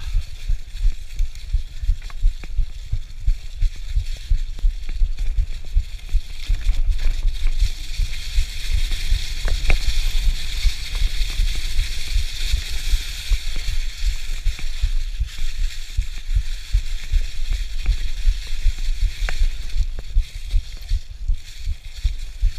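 Mountain bike tyres rolling over a trail covered in dry fallen leaves, a steady crackling hiss, over a constant low rumble from the rough ride, with a few sharp clicks.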